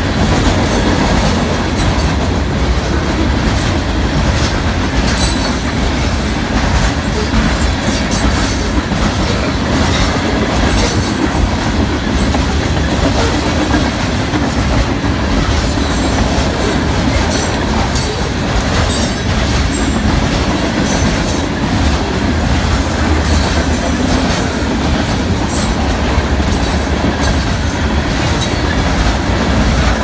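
Coal train's hopper cars rolling past steadily: a loud, continuous rumble of wheels on rail, with irregular sharp clicks and clanks scattered throughout.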